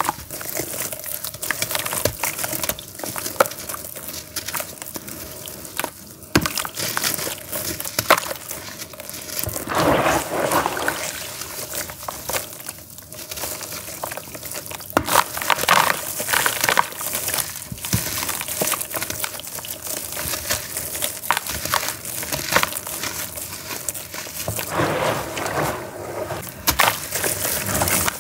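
Grainy charcoal cakes crumbled and squeezed by hand over a tub of water: a continuous run of gritty crunches and crackles as the lumps break apart, with crumbs dropping into the water.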